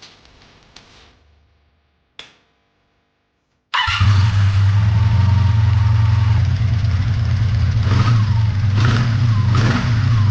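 A few faint clicks, then a little over a third of the way in the Honda V65 Magna VF1100C's 1100 cc V4 engine starts abruptly and runs on steadily.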